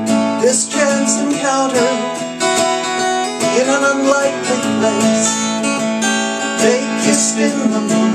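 Acoustic guitar strummed steadily, with a gliding melody line over it and no sung words: an instrumental break in a country-folk song.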